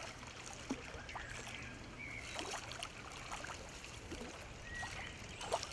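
A hooked trout splashing and thrashing at the surface of the water close to the bank while being played towards the net: light, irregular splashes and sloshes.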